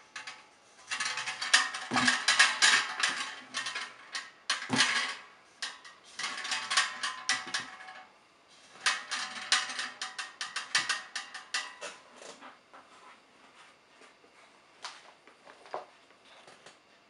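Empty stainless steel ash-vacuum tank being handled: a dense run of clattering and scraping knocks with the metal ringing, broken by a short pause, thinning to scattered knocks for the last few seconds.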